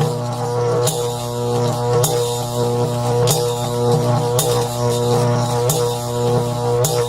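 Electricity sound effect: a loud, steady electrical buzz with a crackling zap about every second and a quarter, six in all.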